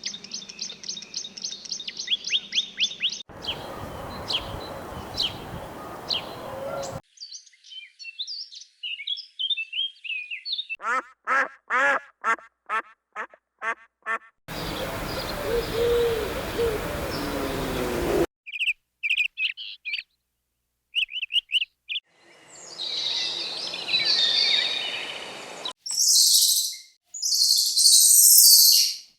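A series of different birds calling and singing, switching abruptly every few seconds: high chirps and trills, a run of evenly repeated calls, and noisier passages.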